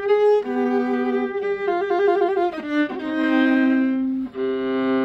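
Short bowed-string music with a violin carrying a melody of held notes over a lower part. It ends on a long sustained chord.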